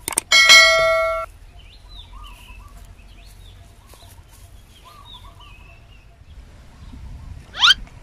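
A click and a bright bell-like 'ding' sound effect from a subscribe-button animation, ringing for about a second at the start. Then faint birds chirp, and a quick rising sweep sounds near the end.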